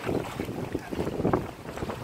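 Small river waves lapping and sloshing against the shore and driftwood logs in irregular surges, with wind buffeting the microphone.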